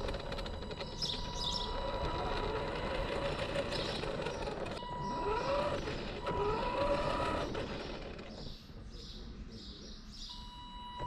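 Electric motor of a remote-control car whining as it drives over asphalt, with a steady tone and a pitch that rises a couple of times as it speeds up; it quietens about eight seconds in.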